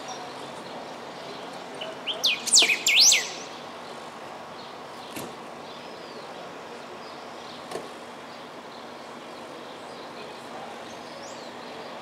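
Golden-billed saltator singing one short phrase of several quick sweeping whistled notes about two seconds in, the last notes loudest. Faint calls of other birds and a steady outdoor hiss fill the rest.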